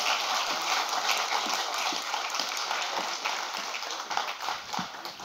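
Audience applauding, a dense patter of many hands clapping that thins out and fades away near the end.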